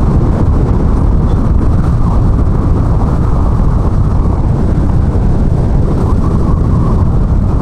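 Wind rushing over the camera microphone from a moving car, with road noise underneath: a loud, steady, low rumble.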